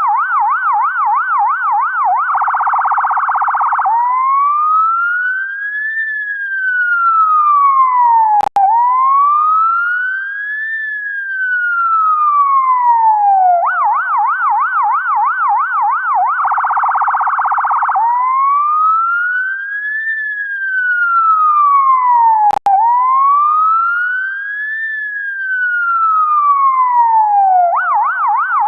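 UK ambulance siren cycling through its tones: a fast yelping warble, a short even faster buzzing warble, then two long slow wails that each rise and fall, the whole pattern repeating about every 14 seconds. A brief click with a momentary dropout comes twice, during the wails.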